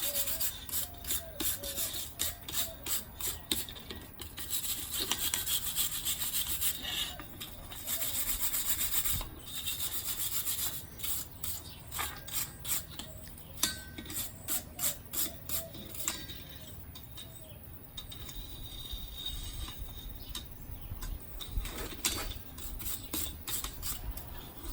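A brush scrubbing over a hot forged steel turtle freshly coated in paste wax, in runs of rapid back-and-forth strokes with short pauses between them, working the wax into the metal as a finish.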